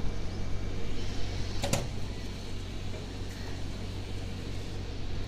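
Steady low mechanical hum, like a motor running, with a sharp double click about a second and a half in.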